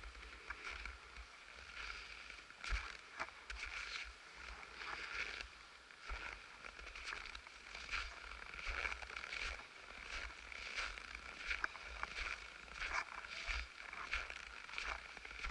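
Footsteps crunching in deep packed snow at a steady walking pace, with the rustle of clothing and handling of the camera carried along.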